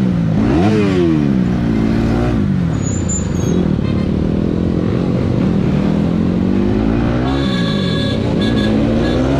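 Bajaj Pulsar NS200's single-cylinder engine revving up and easing off repeatedly while riding in traffic, with other motorcycles running close alongside. The revs climb about half a second in, settle, drop around two thirds of the way through, then climb again near the end.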